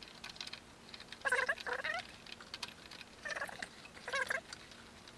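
Fast-forwarded audio: a man's voice sped up into short bursts of high-pitched chattering, with faint clicks of handling in between.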